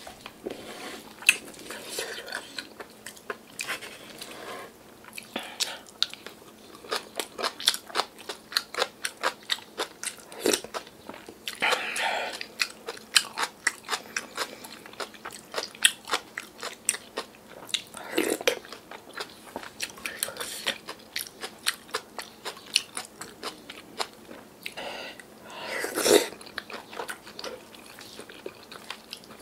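Close-miked chewing and crunching of yeolmu kimchi bibimbap, with many quick crisp clicks from the crunchy young radish kimchi. A spoon scrapes and clinks in the wooden bowl and the stew pot, and a few louder mouth sounds stand out.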